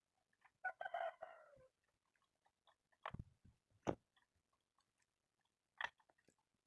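A rooster crowing once, about a second long and ending on a falling note, followed by a few sharp knocks or clicks.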